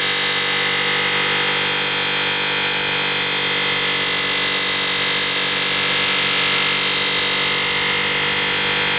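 Electric motor spinning a polishing wheel with a steel kitchen-knife blade pressed against it: a steady motor hum under a loud, even hiss of the wheel working the blade to strip its rust.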